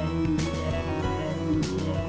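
Background music: an instrumental track with plucked guitar and a steady beat.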